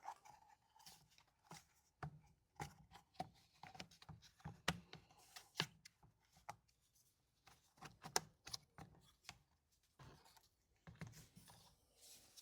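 Light, irregular clicks and knocks of the plastic starter housing of a Stihl MS180c chainsaw being lifted off and handled, with short pauses between.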